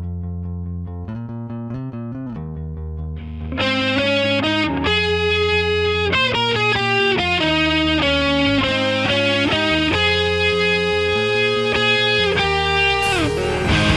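Electric guitar played through effects to test its tone: a melodic riff of single notes. It starts low and softer, turns louder and brighter about three and a half seconds in, and slides down in pitch near the end into a distorted strummed chord.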